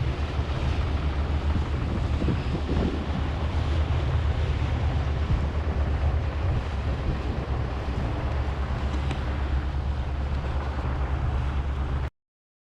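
Wind buffeting the microphone on a boat at sea, a steady rumbling rush mixed with water noise, which cuts off abruptly near the end.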